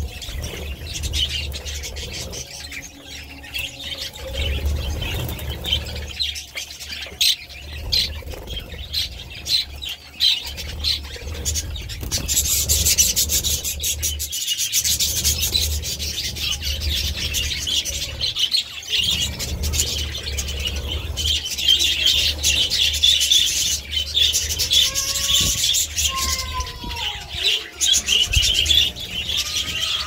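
A flock of budgerigars chattering and warbling continuously, busier from about the middle on, with a few lower, gliding calls near the end. A low rumble runs underneath.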